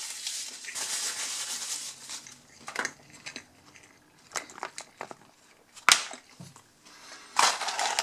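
Paper napkin being handled and crumpled, a steady rustle for the first two seconds or so, then a few scattered taps and clicks and another short paper rustle near the end.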